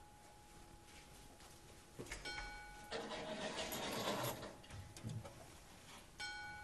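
Two soft chime-like notes, struck about two seconds in and again near the end, each ringing on. Between them comes a rushing, rustling noise lasting about a second and a half, followed by a few low thuds.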